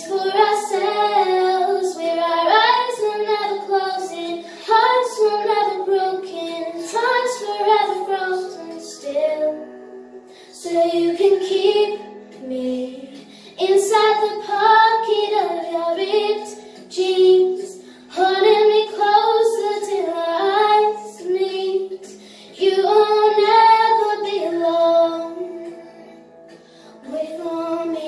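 A young girl singing, in phrases of held notes with short pauses between them, her voice carrying in a small tiled bathroom.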